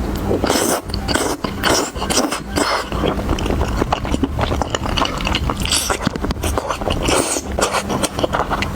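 Close-miked eating sounds: food being bitten and chewed, with rapid, irregular crackly smacks and clicks.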